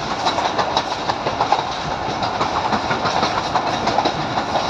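Passenger train running along the track, heard from aboard: a steady rumble of the carriage with dense rattling and clicking of the wheels on the rails.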